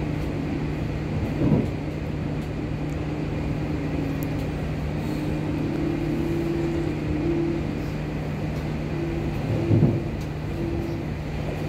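Cabin noise of an MI09 RER A double-deck electric train running between stations: a steady rumble with a constant low hum and faint tones that shift in pitch. Two brief louder sounds come about a second and a half in and near the end.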